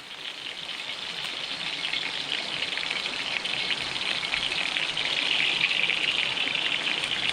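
Oil heating in a wok, crackling and sizzling with water in it, the crackle growing steadily louder.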